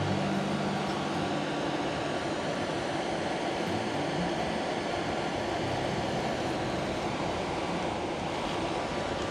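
Hair dryer forcing air through a metal pipe into a charcoal-filled shichirin clay grill: a steady rush of blown air through the burning charcoal, the forced draft that heats the fire for tempering a knife blade.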